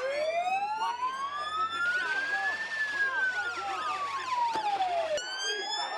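Emergency-vehicle sirens: one wail rising slowly in pitch and falling again, which cuts off abruptly near the end. A second, faster siren sweeps up and down over it throughout.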